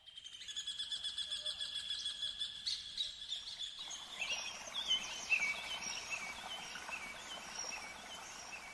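Birds singing: a fast, high, even trill for about the first four seconds, then a different bird's quick run of short chirping notes that dip and rise.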